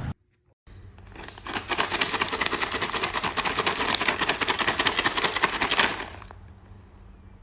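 A fast, dense rattling run of clicks that starts about a second in and stops about six seconds in.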